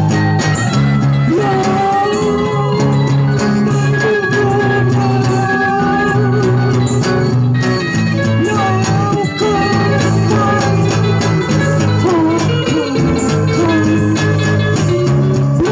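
Music: a song with guitar accompaniment and a steady bass line, and a melody line on top that bends and wavers in pitch.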